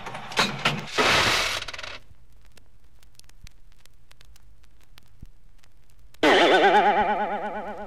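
Coins from a slot machine payout clatter for about two seconds, then stop. After a pause with only faint record hiss, a springy "boing" starts suddenly about six seconds in, its pitch warbling as it rings and fades.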